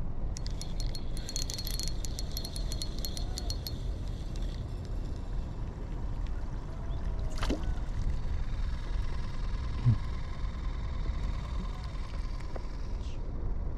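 Outdoor wind buffeting the microphone, a steady low rumble, with a run of rapid, even clicks, about six a second, in the first few seconds.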